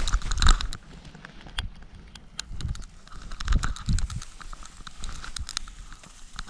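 Handling noise on an action camera as a skydiver lands in a dry grass field: a loud thump about half a second in, scattered sharp clicks and crackling scrapes, and more thumps near four seconds, over a low wind rumble.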